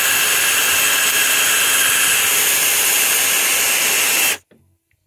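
Handheld drill running steadily as it bores through a rivet on an old Bakelite capacitor block, which cuts the old capacitor inside loose from its leads. The drill stops abruptly about four seconds in.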